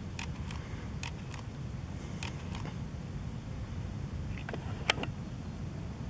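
DSLR camera shutter firing single frames: about eight short, sharp clicks at irregular intervals, some in close pairs, the strongest about five seconds in, over a steady low rumble.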